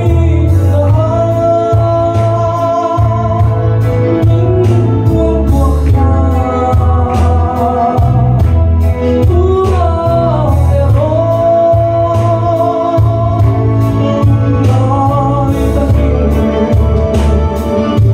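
A man singing a gospel worship song into a microphone, holding long notes over loud backing music with a heavy bass line and a steady drum beat.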